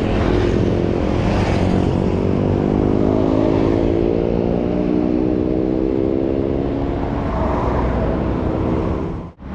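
Motorcycle engine running, its pitch rising slowly over several seconds and then easing off; the sound cuts out sharply for a moment just before the end.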